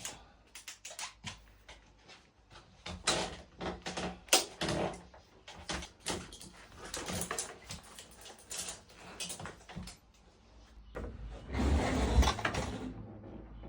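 Irregular clicks, knocks and clatter of hand tools and metal parts as an e-bike hub motor is taken apart, with a longer, louder rattling noise near the end.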